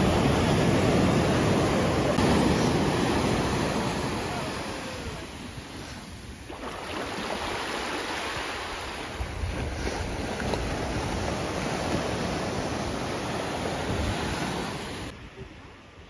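Small sea waves breaking and washing up a flat sandy beach: a steady rushing surf, loudest in the first few seconds, easing about halfway, then steady again until it falls away just before the end.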